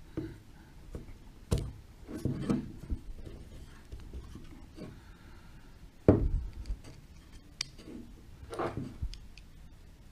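Handling noise from a clear plastic battery pod and its cap being turned and fitted by hand: scattered rubs, knocks and clicks of plastic, the loudest knock about six seconds in.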